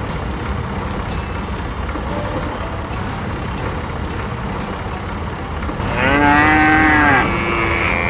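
A cow mooing once, for about a second, about six seconds in, over a steady low engine-like rumble.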